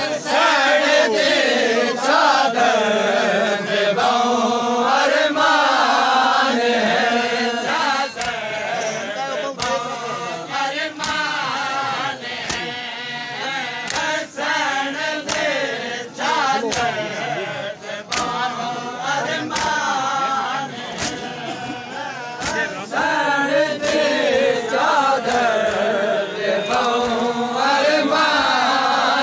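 A group of men chanting a noha, a Shia lament for the martyrs of Karbala, in unison. A crowd's sharp hand-on-chest slaps of matam keep a steady beat of about one a second.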